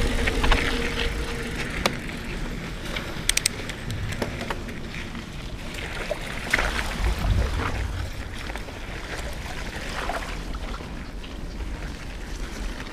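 Mountain bike ridden over a dirt trail and through a shallow rocky creek: tyres crunching and splashing through water, with sharp clicks and rattles from the bike over bumps, under a low wind rumble.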